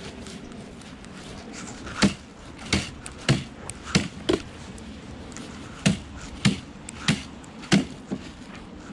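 Pooper-scooper rake and pan knocking together over a bag-lined bucket: about nine sharp knocks at uneven intervals as the collected dog droppings are shaken off into the bag.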